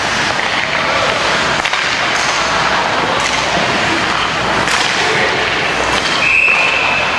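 Ice hockey play: skates scraping on the ice under a steady rink noise, with a few sharp clacks of sticks or puck. Near the end a referee's whistle blows one steady high blast, stopping play.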